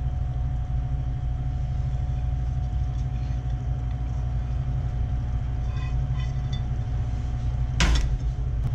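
Food scraped off a metal plate into a steel pot of risotto, with a few light clicks about six seconds in and one sharp clatter of kitchenware near the end, over a steady low background rumble with a faint hum.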